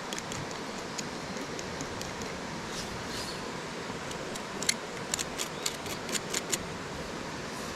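Steady rush of a nearby river, with a quick run of about eight sharp clicks a little past halfway through, as the fire is being worked on.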